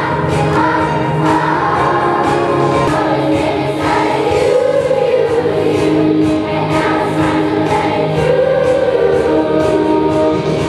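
A large choir of young girls singing over an instrumental accompaniment with a steady beat.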